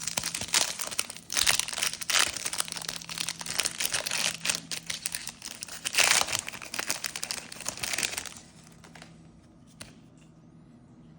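Plastic trading-card pack wrapper crinkling and tearing as it is ripped open and handled. The crackling stops suddenly about eight seconds in.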